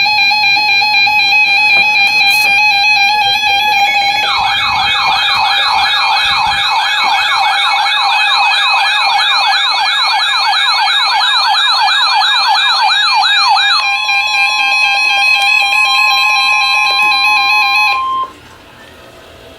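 Emergency Alert System alert tone, signalling the start of a severe weather warning. A steady electronic tone is joined about four seconds in by a rapidly repeating falling siren-like sweep for about ten seconds, then goes back to steady tones and cuts off suddenly near the end.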